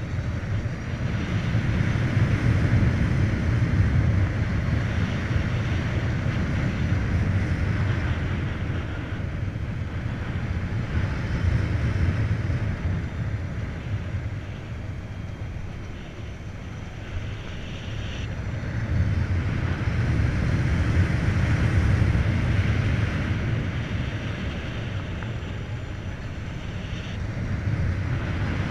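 Wind buffeting the microphone, with road and tyre noise, from a Volta BCN Sport electric motorcycle being ridden. There is no engine note. The rush swells and eases as speed rises and falls, dipping about halfway through.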